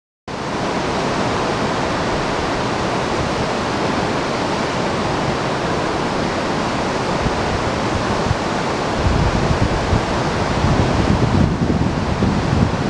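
Steady rushing of a waterfall about 200 metres high. From about nine seconds in, wind buffets the microphone with low gusty rumbling.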